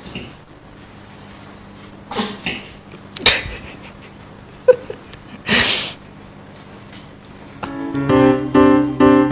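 A cat sneezing several times, short sharp sneezes in a quick run with a longer one after a sharp click. Electric piano music starts near the end.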